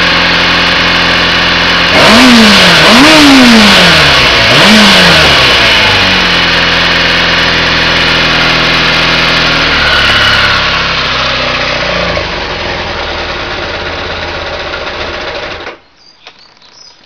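Kawasaki ZX400G (ZX-4) inline-four engine idling, blipped three times in quick succession with the revs rising and falling back to idle. It settles back to a steady idle and stops abruptly near the end.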